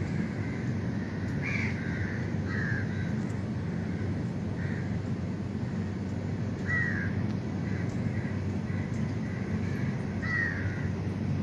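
Crows cawing, about five short harsh calls spaced a couple of seconds apart, over a steady low background noise.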